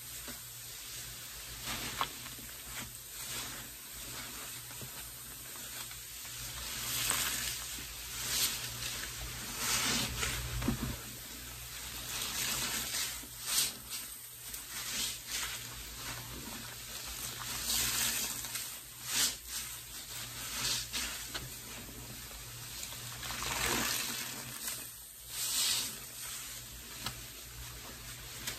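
Soaked sponges squeezed again and again in a bucket of sudsy pine-cleaner water, water dribbling out and the suds sizzling, in irregular surges every second or two.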